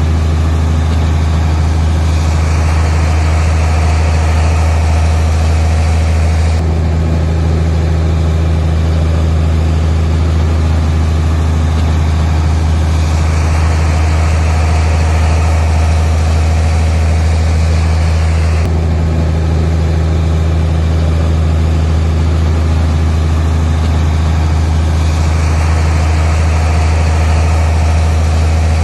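Heavy diesel engine of earthmoving machinery running steadily. A harsher, higher working noise swells over it for several seconds at a time, three times.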